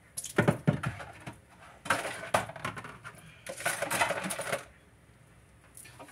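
Dishes and utensils clinking and clattering at a kitchen sink in several short bursts, as items are rinsed and set into a wire dish drying rack.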